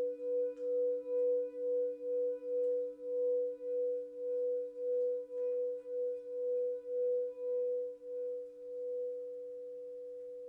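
Frosted quartz crystal singing bowl being sung by a wand rubbed around its rim: a pure, steady tone that swells and fades about twice a second, with a lower bowl tone holding steady beneath. About nine seconds in, the pulsing stops and the tone rings on evenly.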